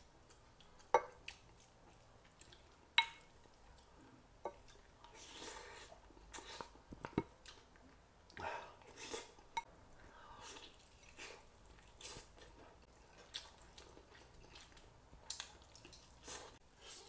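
Close-up eating sounds: a wooden spoon knocks twice on the pot or bowl in the first few seconds, then wet chewing and smacking of rice soaked in braising sauce, and biting into a braised chicken drumstick near the end.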